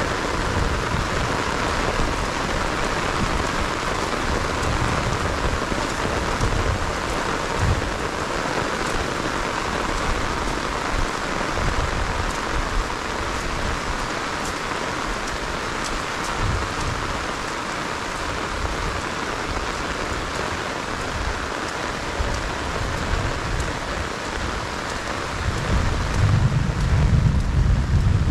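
Heavy rain pouring steadily onto a rice paddy and flooded field, with low rumbling that comes and goes and grows louder near the end.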